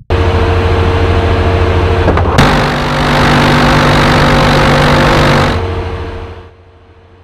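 The F-35A's GAU-22/A four-barrel 25mm rotary cannon fires one continuous burst of about three seconds, a 181-round ground firing into a gun butt, heard as a harsh, buzzing roar. It starts suddenly about two seconds in and dies away after it stops. Before the burst a loud steady rush of machinery noise is heard, and a quieter steady hum remains after it.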